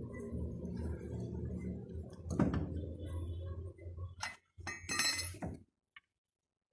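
Metal clinks of lug nuts and a lug wrench against the wheel hub as a wheel is being fitted, several sharp clinks with a cluster near the end, over a steady low hum. The sound cuts off abruptly about a second before the end.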